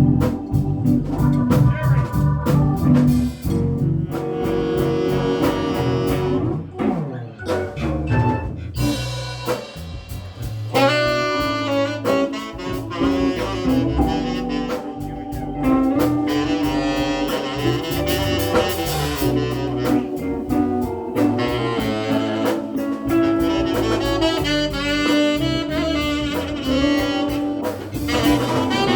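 Instrumental break of a song with no singing: a saxophone plays a solo over drum kit and backing band.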